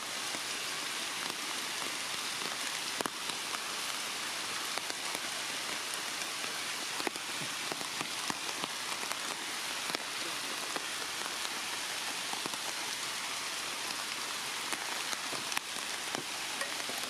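Steady rain falling on leaves: an even hiss with scattered single drops heard above it.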